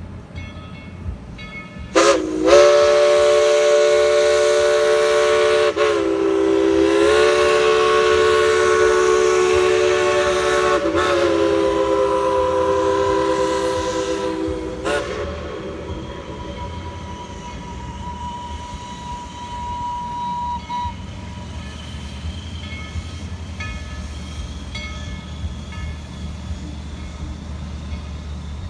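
Locomotive's multi-note chime whistle blown in one long blast of about thirteen seconds, dipping in pitch twice as it is worked. A single thin high tone carries on alone for several seconds after the chord stops, over a steady low rumble.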